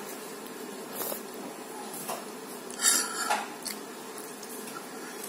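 Light clicks and scrapes of fingers picking food off a plate, with one louder scrape a little under three seconds in, over a steady low background hum.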